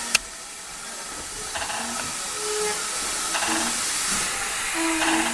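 A steam-hauled train running, heard from a carriage window: a steady rush of steam and running noise, with short bursts of clatter about every one and a half to two seconds and one sharp click just after the start.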